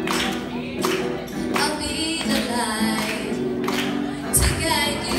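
Music with a woman singing over a held instrumental backing.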